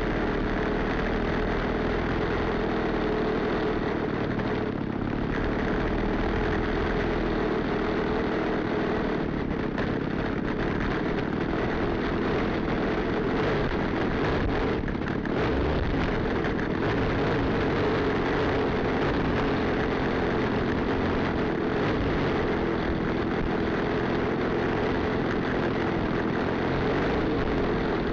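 Yak 54 RC model plane's gasoline engine running at low throttle, a steady drone with no clear revving, while the plane taxis on the ground.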